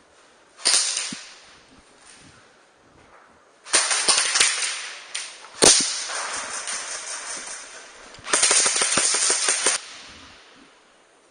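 Airsoft guns firing bursts of rapid shots: a short burst about a second in, a longer one around four seconds, a single sharp crack, then a burst of over a second of fast repeated shots near the end.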